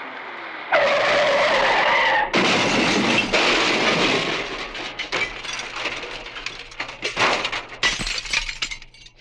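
Sound effect of a car crash: tyres screech for about a second and a half, then a heavy impact with glass shattering, and debris clattering down in scattered hits that die away.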